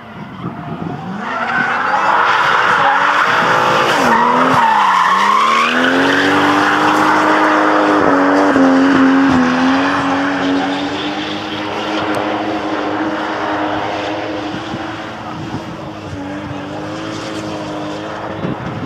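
Drift car in a long slide, its engine held at high revs while the rear tyres spin and squeal. The revs dip and climb back about four to five seconds in, then hold steady.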